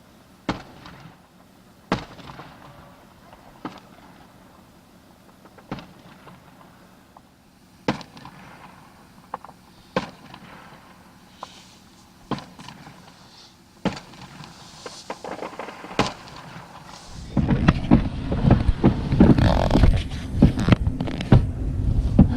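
Fireworks show: single aerial shells bang about every two seconds. Then, about seventeen seconds in, it turns into a much louder, dense barrage of overlapping bangs and crackling.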